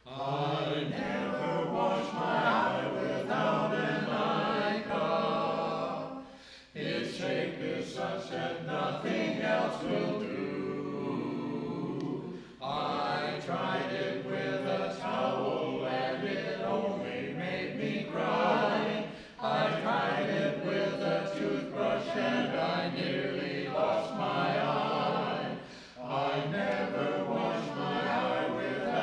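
A small mixed vocal group of five men and a woman singing a cappella, reading from song sheets. The song goes in phrases of about six seconds, each followed by a brief breath pause.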